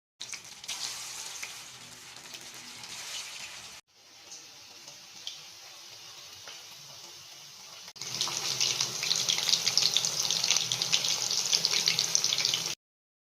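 Chicken 65 pieces deep-frying in hot oil, a steady sizzle full of fine crackles, in three short takes with abrupt cuts; the last, from about eight seconds in, is the loudest.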